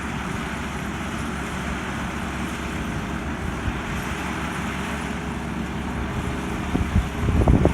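Kubota 128-horsepower six-row combine harvester running steadily, its engine and machinery making a continuous drone; near the end it gets louder and rougher.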